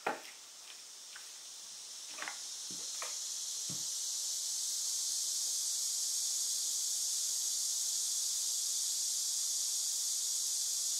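A steady high hiss that swells over the first few seconds and then holds, with a few light clicks and taps early on as the probe leads of a LiPo internal-resistance tester are handled and set against a battery.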